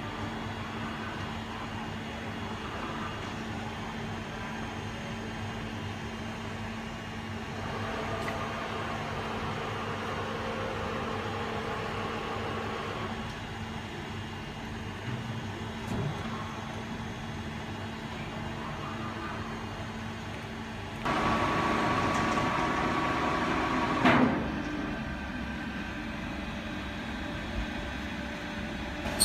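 Large CNC table-type boring machine running, with a steady electrical and hydraulic hum. A motor whine comes in for several seconds about a third of the way through. About two-thirds through, a louder whine with mechanical noise starts suddenly and stops a few seconds later with a single clunk, typical of an axis or the spindle being driven.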